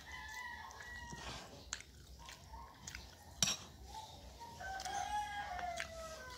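A rooster crowing twice, one call near the start and a longer one from about four and a half seconds in that drops in pitch at its end. There is a sharp clink of a spoon against a plate about three and a half seconds in.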